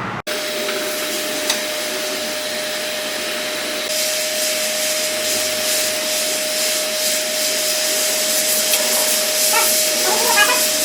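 Hot air rework station blowing steadily, a hiss with a constant fan whine, reflowing solder on a laptop's USB-C charging port; the hiss turns brighter about four seconds in.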